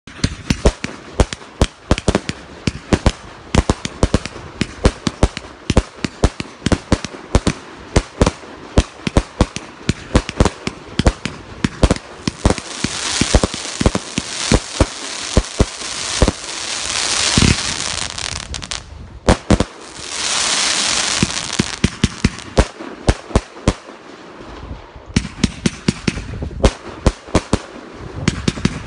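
The Guv'nor, a 1.3G compound firework cake by Men Shun, firing a rapid run of shots, several reports a second, as tubes launch and burst. Two stretches in the middle carry a dense crackling hiss, with a brief lull just before and just after the second.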